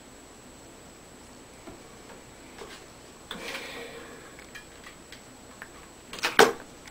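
Hands handling small craft items, with faint scattered clicks and a brief rustle about three and a half seconds in. A sharp clatter of a few knocks comes near the end as a small plastic hot-glue gun is picked up and handled.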